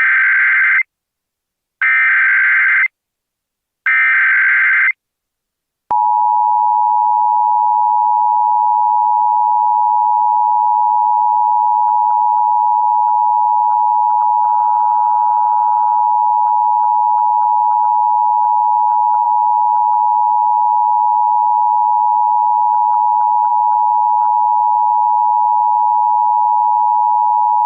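Emergency Alert System signal: three bursts of warbling SAME digital header data, each about a second long and about two seconds apart. After a short gap comes the steady two-tone EAS attention signal, held unbroken. The header bursts carry the alert's coded data, and the attention tone announces that a spoken emergency message follows.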